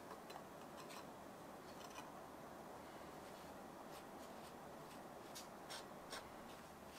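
Faint, sparse light clicks and taps of small kitchen utensils and tart pieces being handled, over a quiet steady room hiss.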